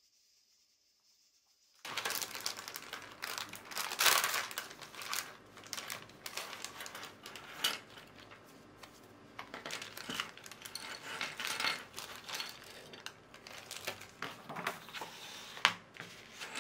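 Clear plastic packaging crinkling and rustling as it is handled, starting about two seconds in, with a few sharp clicks of small plastic toy-brick pieces.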